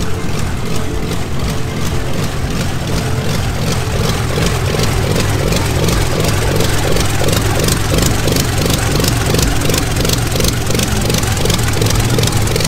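Large engine of an Edwardian racing car running at low revs close by, an even beat of separate firing strokes over a deep rumble.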